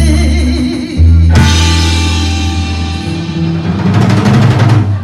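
Live rock band, with electric guitar, bass guitar and drum kit, playing held chords at the close of a song, with a loud cymbal-crash hit about a second in and a rapid drum roll near the end.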